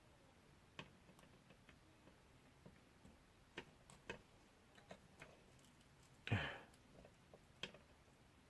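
Faint, scattered clicks and taps of small plastic drone parts and a tool being handled, with one brief scrape about six seconds in, while a ribbon-cable connector is worked loose.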